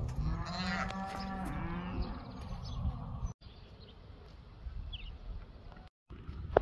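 One long moo from domestic cattle, lasting about two seconds and bending up and then down in pitch, followed by quieter outdoor background.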